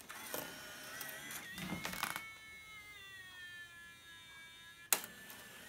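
The slot-loading CD/DVD drive of an iMac G3 pulls in a disc. A few clicks and rattles come first, then a steady motor whine that slowly falls in pitch, and a sharp click about five seconds in.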